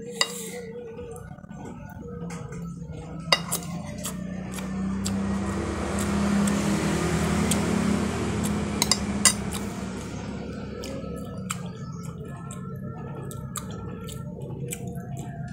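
Dishes and cutlery clinking a few times in sharp knocks, over a steady low hum and a rush of noise that swells to a peak about halfway through and then fades.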